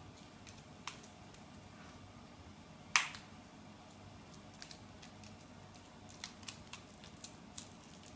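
Scattered light clicks and taps from a kitten playing with a string toy on a tile floor, one sharper click about three seconds in and a quick run of lighter ones near the end, over a faint steady room hum.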